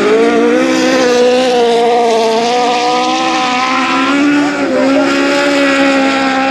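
Lowered VW Beetle autocross car's engine held at high revs as the car powers across the dirt track, its pitch rising and falling a little with the throttle.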